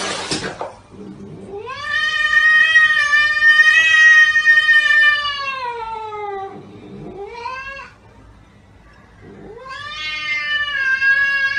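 Cat yowling: one long drawn-out caterwaul that rises, holds and slides down, a short rising cry, then a second long yowl. It is the warning yowl of a cat facing off with another cat.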